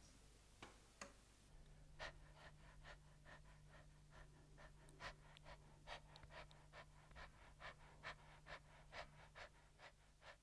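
Faint, quick, even dog-like panting from a man with his tongue out, about two breaths a second, starting a couple of seconds in. A faint steady hum sits underneath.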